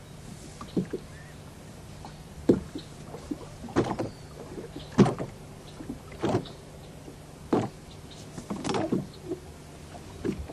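Water slapping and knocking against the hull of a small fishing boat, a sharp slap about every second and a quarter, over a steady low hum.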